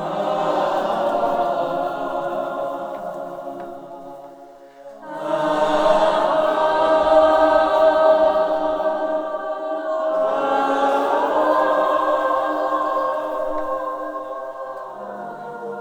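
Choir singing long held chords in three swelling phrases, a new chord entering about every five seconds and the last one fading near the end.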